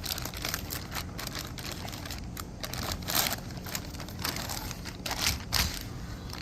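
Plastic packaging crinkling and rustling as a boxed display screen is unwrapped and handled, with louder rustles about three seconds in and again a little after five seconds.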